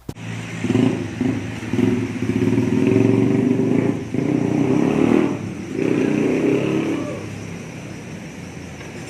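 A motor vehicle engine, likely a motorcycle, running. Its level rises and falls a few times, then settles lower after about seven seconds.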